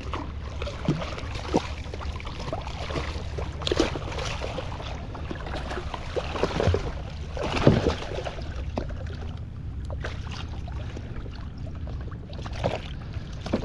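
Knocks and thumps on a kayak hull, several in a row with the loudest a little past halfway, over steady wind and water noise, as a big jack crevalle is hauled aboard the kayak.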